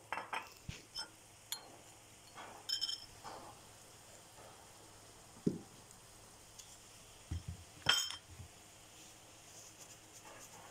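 A metal spoon clinking and tapping against a ceramic bowl as saffron liquid is stirred: scattered light clinks with pauses between, the loudest a couple of seconds before the end.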